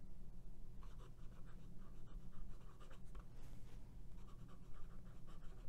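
Fine 14k gold nib of a Pelikan M400 fountain pen writing on lined Rhodia paper: faint, quick scratching in short strokes as a couple of words are written. The nib is smooth but not buttery, giving a little feedback from the paper.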